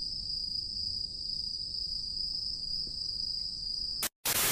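Insects chirring steadily in one continuous high-pitched tone. About four seconds in it cuts off and a loud hiss takes over.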